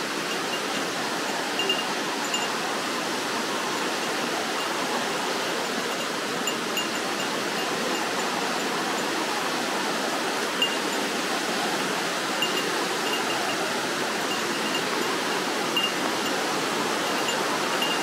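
Steady rush of a mountain stream running over rock slabs and small cascades.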